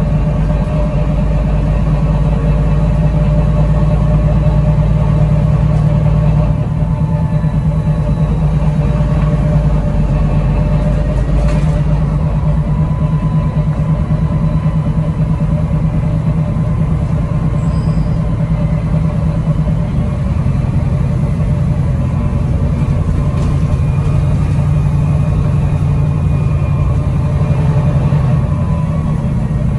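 Bus engine running, heard from inside the passenger saloon as a steady low drone. It eases off about a third of the way in and builds up again in the last third.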